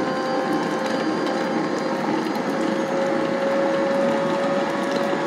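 Electric stand mixer with a centre-column plastic bowl running steadily, its beater creaming butter and shortening, with a steady motor hum and whine.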